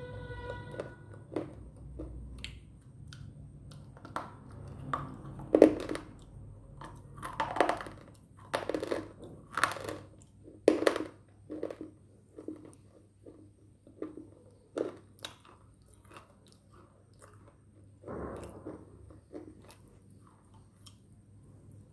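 Bites and chewing of a brittle slate piece, a quick run of irregular sharp crunches that are loudest in the middle and thin out towards the end.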